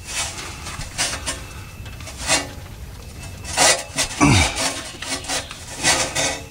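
A metal pry tool scraping and hooking against the rear transmission output seal of a Toyota Tundra as the seal is worked loose: a series of short rasping scrapes, roughly one a second, strongest about four seconds in.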